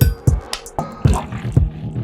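Music with a steady beat of short percussive hits, about four a second, over a low sustained tone.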